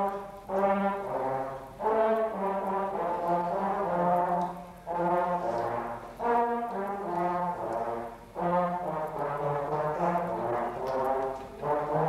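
School band's brass section, with baritone horn and trombone, playing sustained chords in short phrases with brief breaks between them.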